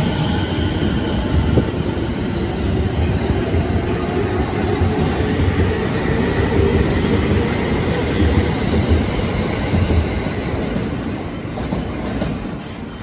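JR East electric commuter train moving past the platform: wheels clatter over the rail joints under a motor whine that rises slowly in pitch. The sound fades over the last few seconds as the train draws away.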